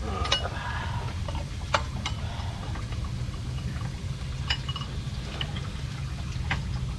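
A few sharp metallic clicks and taps of a wrench being fitted on the fan clutch, spread out with pauses between them, over a steady low hum.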